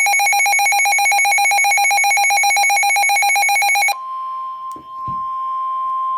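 Midland HH54 weather radio sounding its alert alarm, a rapid pulsing electronic beep, for about four seconds. It then switches to the steady single NOAA Weather Radio warning tone, which signals a severe thunderstorm warning. A couple of short knocks come about a second after the switch.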